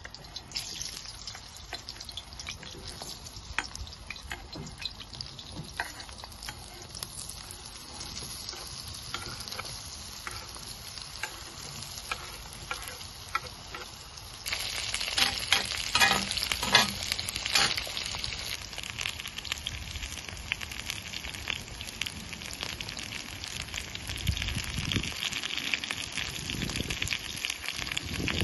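Diced potatoes sizzling in hot oil in a wok. The frying gets louder about halfway through, with a short run of sharp clicks from the metal skimmer against the pan, then carries on as a steady, louder sizzle while the potatoes are stirred.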